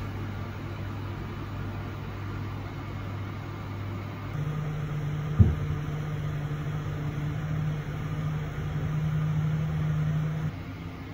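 Steady electrical hum of a pizza vending machine's cooking and cooling units. About four seconds in it steps up to a slightly higher, louder hum that drops back near the end. One sharp thump comes about halfway through.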